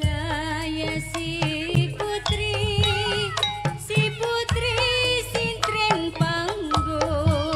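Traditional music: a wavering, ornamented melody line over low drum strokes and frequent clicking percussion.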